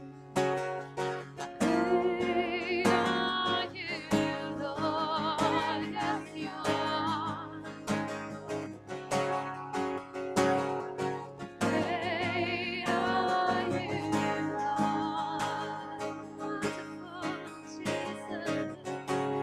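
Acoustic guitar strummed steadily under women singing long, wavering held notes: a live worship song.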